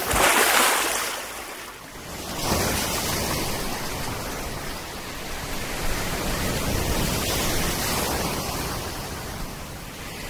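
Small waves splashing and washing in shallow surf: a steady rushing wash of water, with a louder surge at the start that eases off about two seconds in before the wash comes back.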